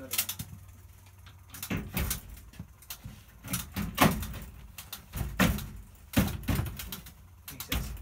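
Hoover Ecologic 1300 front-loading washing machine being set going on a fast spin: a run of irregular clicks and clunks, some of them loud, over a low steady hum.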